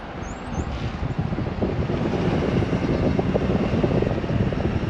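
Truck driving slowly on a wet road: tyre and road noise with wind rumbling on the microphone, getting louder about a second in. Two faint high chirps sound near the start.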